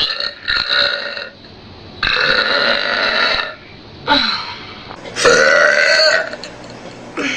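A person burping loudly about five times in a row. The burps are long and drawn out, the longest lasting about a second and a half, with short gaps between them.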